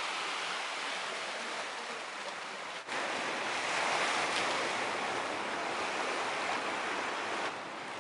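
Surf breaking on a shore: a steady rushing hiss of waves, cut off for an instant about three seconds in and then going on, a little louder for a while.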